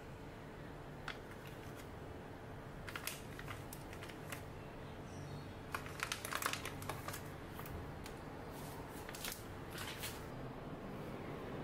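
Soft, scattered taps and light clicks of small sausages being set down one at a time on a wooden cutting board and fingers handling them, loudest about six seconds in, over a faint steady hum.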